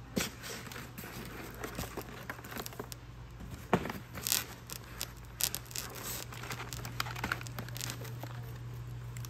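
Cardboard box flaps being handled and a thin plastic sleeve crinkling as a tray of plants is lifted out: scattered rustles with a couple of sharper knocks around four seconds in, over a steady low hum.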